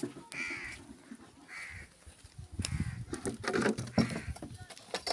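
Crow cawing: two short, harsh caws about a second apart, followed by a louder stretch of mixed, jumbled sound through the middle.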